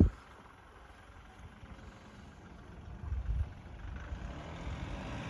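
Faint engine of an off-road SUV pulling up a sandy slope at a distance, a low rumble that swells briefly about three seconds in.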